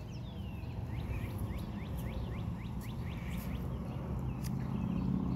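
A bird calling: a run of short rising chirps, about four a second, over a low steady rumble.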